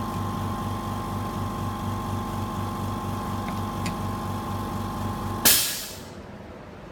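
Flex cable laminating machine running with a steady hum and a low throb pulsing about four to five times a second; about five and a half seconds in a short loud hiss of air sounds and the running stops.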